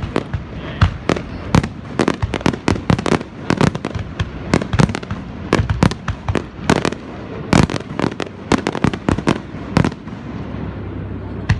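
Fireworks display going off: many sharp bangs and cracks in quick, irregular succession, overlapping one another, thinning out briefly near the end.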